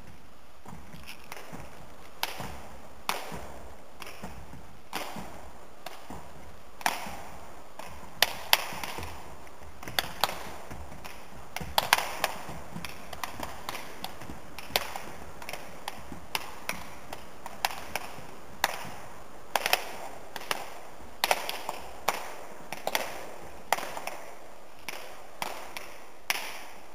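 Sharp slaps, one or two a second at uneven intervals and of varying loudness, from wushu athletes' hands striking their raised feet during front slap kicks, each with a short echo in a large hall.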